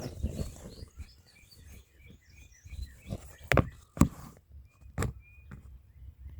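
Small birds chirping faintly and repeatedly, with a low rumble and a few sharp knocks in the middle.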